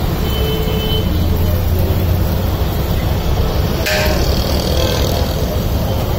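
Steady low roar of a street-stall gas wok burner mixed with street traffic, with a short vehicle horn toot about half a second in and a brief clatter near four seconds in.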